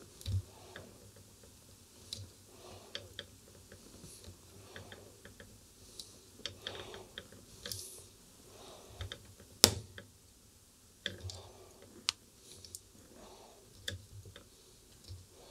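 Scattered small clicks and taps of fingers working the stiff FM tuning drum and shaft of a Grundig 2140 valve radio, which is seized with dried grease and has been sprayed with WD-40 to free it. One sharper click stands out about ten seconds in.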